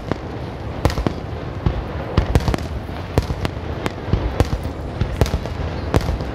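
Fireworks display: a rapid barrage of shell bursts, sharp bangs coming irregularly about two or three times a second over a continuous low rumble.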